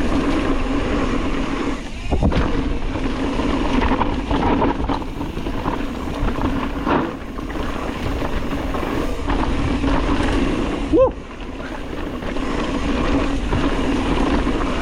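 Mountain bike descending a fast, rocky trail: a steady rush of wind and tyre noise with the bike rattling and knocking over bumps. A short 'woo' from the rider near the end.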